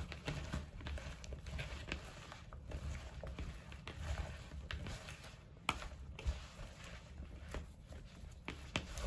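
A hand tossing and squeezing sliced bitter gourd in a plastic bowl, the slices sticky with flour, spices and oil. It makes faint, irregular rustling and squishing with small clicks of the slices against the bowl, and one sharper click a little past halfway.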